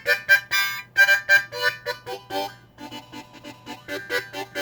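A short burst of lively instrumental music: a quick run of short, bright notes, several a second.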